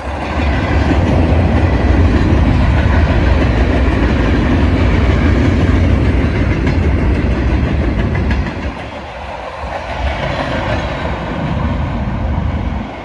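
Freight cars of a Union Pacific train rolling past: a heavy rumble with wheels clacking over the rail joints. About eight seconds in the rumble drops away, leaving a lighter rattling noise.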